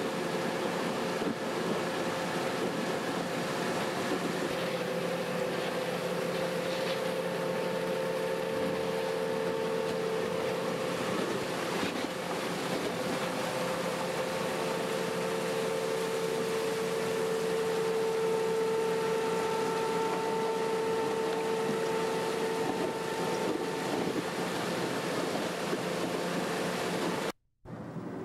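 Deck machinery on a herring fishing boat running steadily: a constant mechanical drone with a held whine. It cuts off abruptly about a second before the end.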